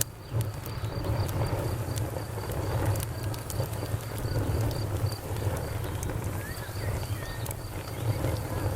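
Wood campfire crackling, with sharp irregular pops, over a low rumble. Crickets chirp throughout in a steady train of short, evenly spaced pulses.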